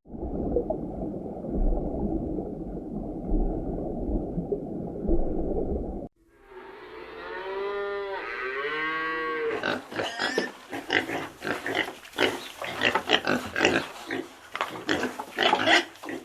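Animal sounds in three abrupt sections: a low, muffled rumbling noise for about six seconds, then a run of pitched calls that rise and fall, then rapid rough pulsed calls to the end.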